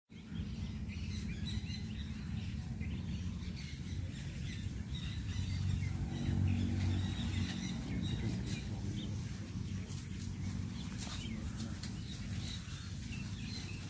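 Many small birds chirping in short, high calls throughout, over a steady low rumble on the microphone that swells about six seconds in.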